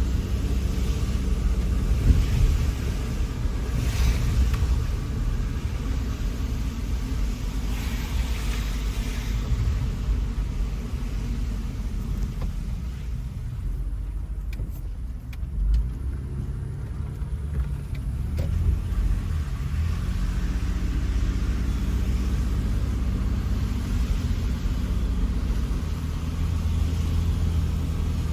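A car driving, with a steady low rumble of engine and road noise that eases off in the middle and builds again toward the end.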